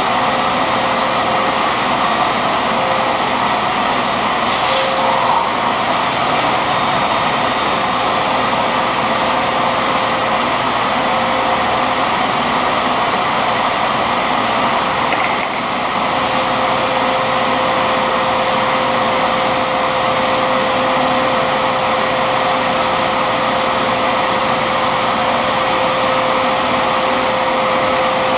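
Shop vacuum running steadily: a constant suction rush with a steady whine. Its level dips slightly for a moment about halfway through.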